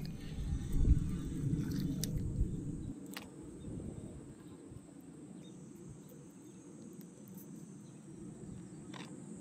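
Insects chirping steadily in the background. A low rumble on the microphone dominates the first three seconds, then dies down, leaving the insects and a few faint clicks.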